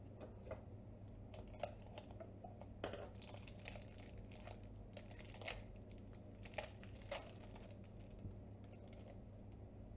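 A chrome double-acting spring hinge being unwrapped and handled: plastic wrapping crinkles and the metal hinge gives a scatter of light clicks, which die away about seven seconds in.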